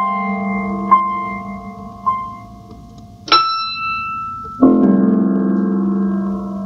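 Alesis digital keyboard played with a piano sound: a held chord with single higher notes struck about once a second, a high note near the middle, then a full chord struck about two-thirds of the way through that rings and slowly fades.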